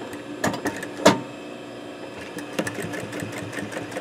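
JUKI industrial sewing machine stitching a seam in short runs, its mechanism ticking, with a few sharp clicks in the first half, the loudest about a second in.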